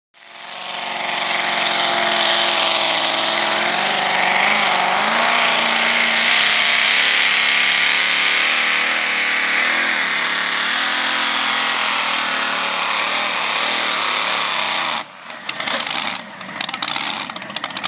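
Supercharged engine of a modified pulling pickup at full throttle, loud and steady with its pitch wavering as it drags a weight-transfer sled. About 15 seconds in the throttle is let off as the truck stops, and the sound drops and turns choppy.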